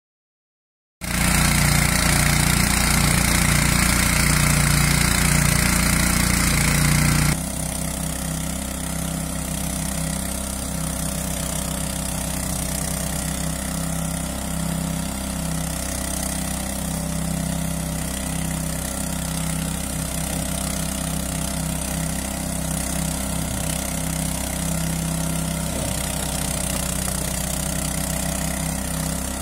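Small petrol engine of a tracked radio-controlled mower running steadily. It starts abruptly about a second in and drops suddenly to a lower, steady level about seven seconds in.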